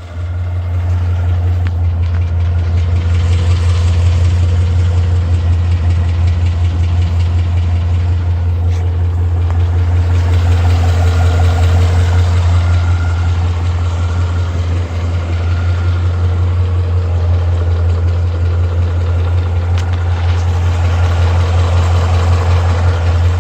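2012 Ford Mustang 5.0's Coyote V8 idling steadily with a ticking noise from the engine, the unexplained tick that the owner is recording.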